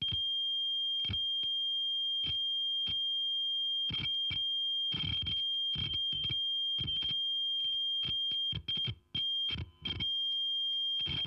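A steady high-pitched electronic tone, overlaid with irregular crackles and clicks, that cuts out briefly twice near the end: a sound-effect intro to a heavy metal track.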